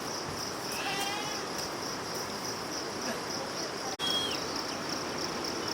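Insects buzzing steadily at a high pitch, with a few short bird calls over it; the sound cuts out for an instant about four seconds in.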